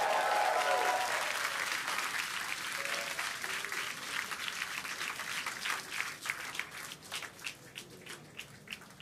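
Crowd applause, dense at first and thinning out to scattered single claps near the end.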